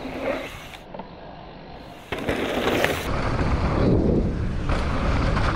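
Bike riding over a wet, rough trail: tyre noise and a few knocks, with wind rumbling on the microphone, louder and steady from about three seconds in.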